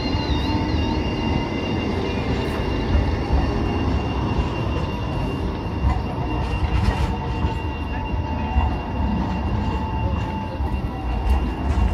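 A Dresden low-floor tram rolling through a curve on street track, with a steady high squeal from its wheels in the curve over the running noise.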